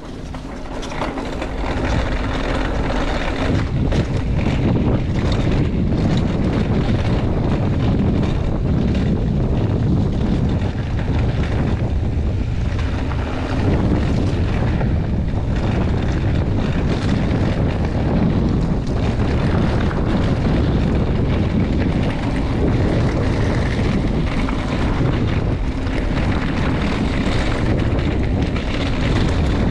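Wind buffeting the microphone and rumble from a mountain bike riding fast on a dirt trail, building up over the first couple of seconds and then holding steady, with many small knocks and rattles.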